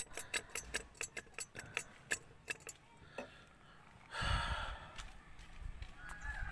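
A quick run of sharp metallic clicks, about four a second, from hand tools and the loose exhaust pipe joint being worked on. About four seconds in, a burst of rustling handling noise with a low rumble takes over.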